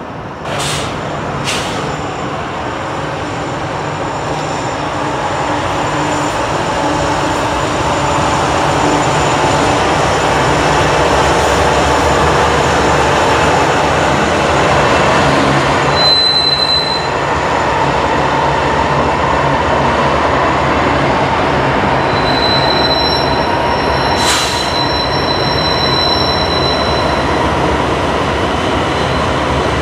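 A train rolling past close by, its cars giving a steady rumble and rattle that builds over the first several seconds. Brief high-pitched wheel squeals come about halfway through and again later on.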